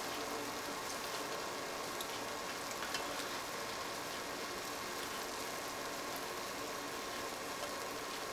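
Turkey patties frying in sauce in a nonstick pan: a steady sizzle with a few small pops, over a steady hum.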